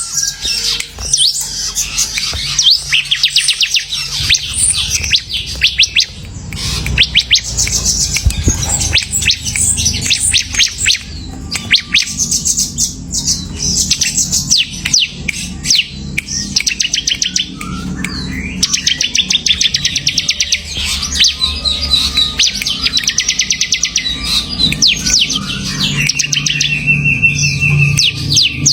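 Bar-winged prinia (ciblek) singing in bold, rapid chattering trills, one burst after another with short pauses between.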